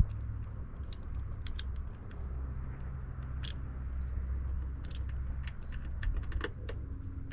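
Small metallic clicks and light rattling of a screwdriver driving in a grounding bolt, scattered irregularly, over a steady low hum.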